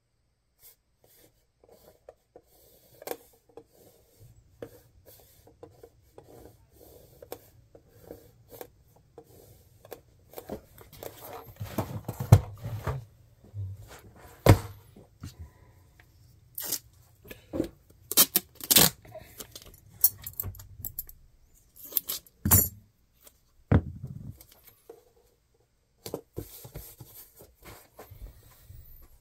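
Wooden cigar boxes handled on a cutting mat: a run of clicks, knocks and scrapes, with the sharpest knocks as boxes are shifted and set down around the middle. Lighter scratching and tapping of a paint marker writing a label at the start and near the end.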